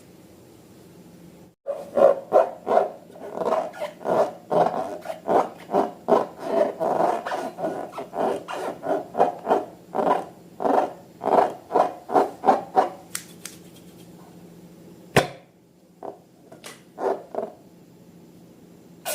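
Slime being squeezed and worked by hand: a quick run of short wet squishes, two or three a second, that stops about two-thirds of the way through, followed by a single sharp click and a few softer squishes.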